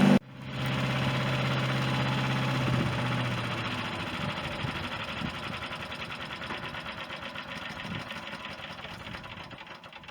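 Harbor Freight chipper shredder's 212cc Predator engine running with nothing being fed, a steady hum for the first few seconds, then a rhythmic clatter that slowly fades as the machine winds down.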